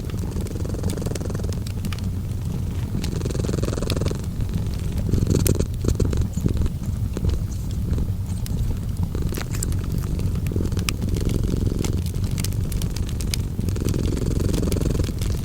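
A cat purring in a low, steady pulse, mixed with the scattered crackles and pops of a fireplace.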